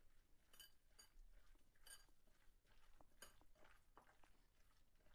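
Faint squishing of a hand kneading soya chunks into curd and spice powders in a glass bowl, with a few small clinks.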